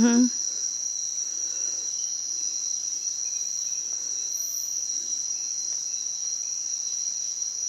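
Steady chorus of nocturnal rainforest insects, a continuous high-pitched, even drone.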